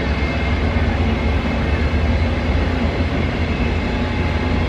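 Empty cattle wagons of a freight train rolling past on the rails, a steady rumble of wheels on track.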